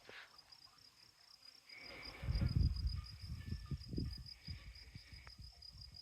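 An insect trilling steadily in rapid high pulses, with irregular low thuds and rumble starting about two seconds in and loudest just after.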